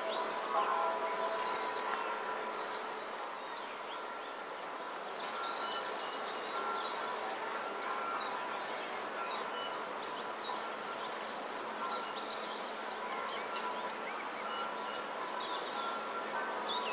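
Birds chirping in quick, repeated short calls over a steady background noise with a faint hum.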